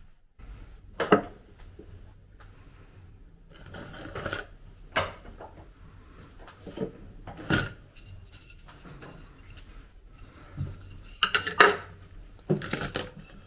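Small decorative figurines and a ceramic jug vase being set down and shifted on a wooden shelf: a series of sharp knocks and clinks a few seconds apart, several close together near the end.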